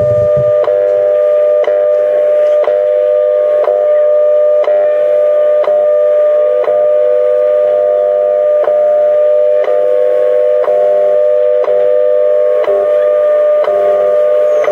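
Shortwave radio receiving a powerful HF transmission, which the uploader identified as HAARP: a steady two-tone hum broken by a sharp tap about once a second, like the Russian Woodpecker.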